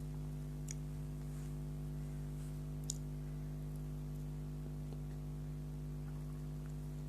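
A few sharp mouth clicks and smacks from eating soft bakery food, the loudest about three seconds in, over a steady low electrical hum.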